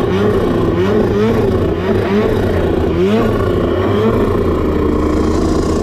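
Snowmobile engine revving in repeated rising surges as the throttle is worked, then holding a steady pitch for a second or so near the end.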